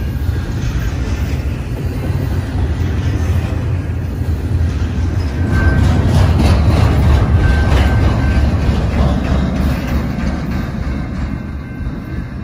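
Double-stack container train's well cars rolling past on the rails, a steady rumble with clicking wheels. It is loudest about halfway through as the last car goes by, then fades as the train moves away.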